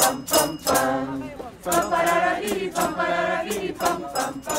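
A mixed choir of men and women singing janeiras, a Portuguese New Year carol, together in unison.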